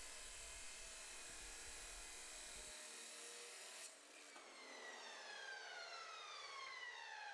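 Abrasive chop saw cutting through steel bar stock with a steady grinding hiss. About four seconds in, the cut ends and the motor winds down in a whine that falls in pitch.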